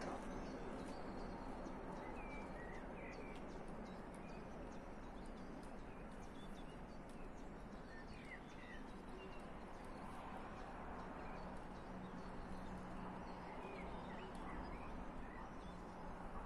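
Faint open-air ambience: a steady low rumble of background noise, with small birds chirping in short bursts now and then.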